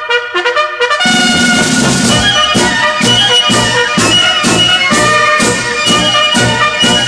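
Military band playing a French march. A brass fanfare opens it, then about a second in the full band with drums comes in at a steady march beat of about two strokes a second.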